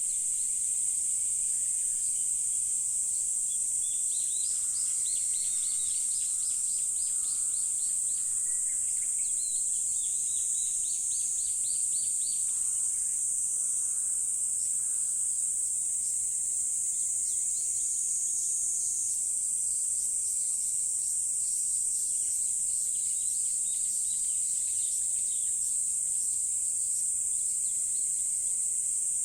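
A continuous high-pitched insect chorus, with a bird singing quick series of short notes through the first half and fainter calls later.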